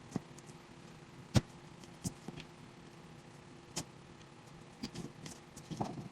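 Scattered sharp clicks and taps of toys and plastic packaging being handled, about a dozen irregular strokes with the loudest about a second and a half in, over a faint steady hum.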